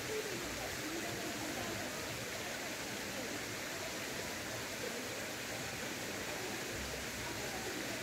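Steady rushing of a mountain valley stream, an even wash of water noise with no breaks.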